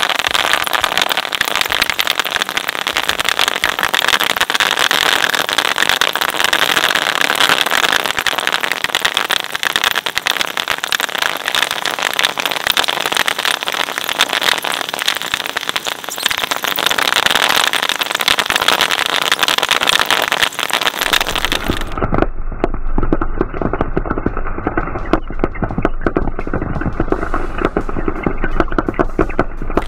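Bubble wrap being shredded by a twin-shaft shredder: a dense, rapid crackle of bursting bubbles and tearing plastic over the machine's running. About twenty seconds in, the sound turns duller, with the high crackle dropping away and a low hum coming up beneath it.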